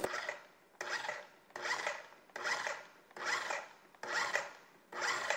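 Food processor pulsed over and over, about seven short bursts a little under a second apart, whipping heavy cream.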